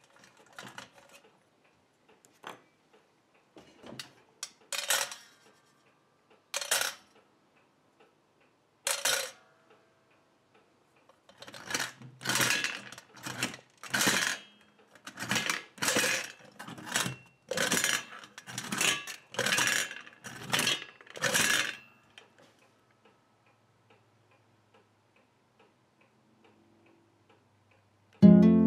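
Wyandotte tin toy hen: scattered metal clinks and rattles as the comb is worked and marble eggs go in, then about fourteen clattering strokes, one every 0.7 seconds or so, as its spring-loaded tin body is pressed down again and again to release the marbles one at a time. Acoustic guitar music comes in at the very end.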